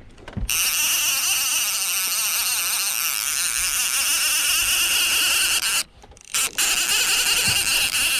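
Baitcasting reel cranked fast close by, its gears giving a continuous high-pitched whir as line is reeled in. It stops briefly about six seconds in, then starts again.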